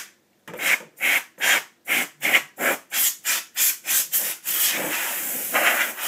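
Can of compressed-air duster spraying in about ten short hissing puffs, two or three a second, then one longer continuous blast near the end, blowing dust out of a computer case.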